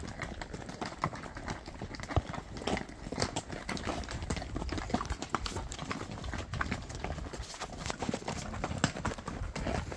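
Horses' hooves clopping on a stony dirt trail at a walk: an irregular run of knocks from the ridden horse and the horses close ahead.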